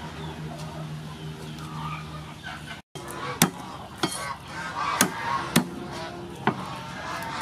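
Cleaver striking a thick wooden chopping block about five times, sharp separate knocks as it smashes and chops garlic cloves.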